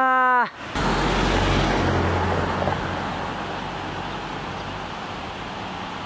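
Rushing noise with a low rumble that starts suddenly and slowly fades away.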